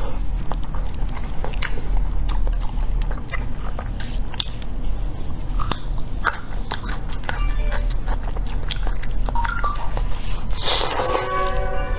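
Close-miked eating of blood sausage: wet chewing, biting and lip-smacking clicks scattered throughout, over a steady low hum. A brief pitched sound comes in near the end.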